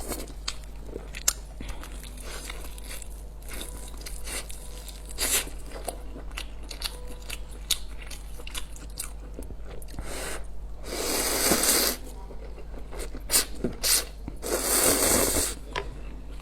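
A person eating instant noodles and a big chicken leg: crunchy bites and chewing with many sharp clicks, and two longer noisy bursts, about 11 and 15 seconds in.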